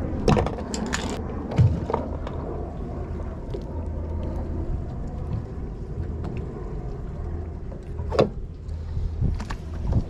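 Boat's twin Mercury Verado V8 outboards idling as a steady low hum, with a few sharp knocks, the loudest about eight seconds in.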